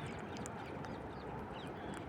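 Parrots giving faint, short, high chirps a few times over a steady background rush.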